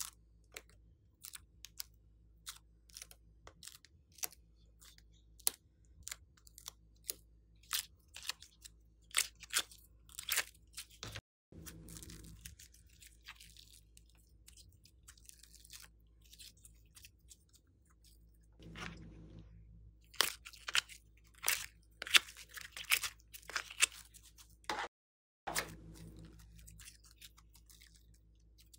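Slime being handled, stretched and squeezed by hand, giving sharp sticky clicks and crackles, sparse at first and then in dense runs of crackling and popping.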